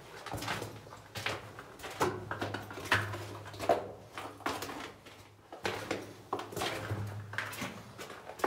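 Footsteps on the rock and gravel floor of a mine tunnel at a steady walking pace, each step a short scuff or crunch with a little echo off the close rock walls.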